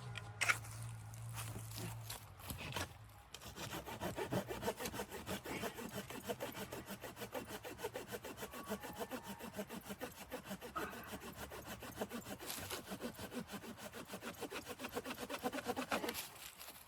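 Hand saw cutting wood in quick, steady back-and-forth strokes. The sawing starts about three seconds in and stops shortly before the end.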